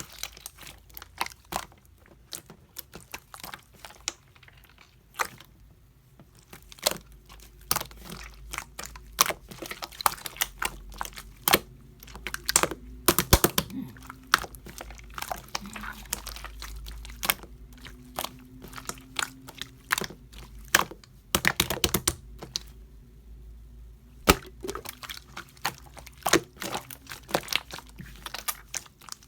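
Slime being pressed, stretched and folded by hand, giving many irregular crisp clicks and pops, some in quick runs, as air pockets burst in it.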